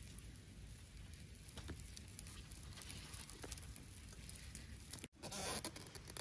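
Faint outdoor ambience with a few light clicks and rustles from fingers working chilli seasoning in a coconut-shell bowl. About five seconds in the sound breaks off for an instant, then a louder noisy hiss begins.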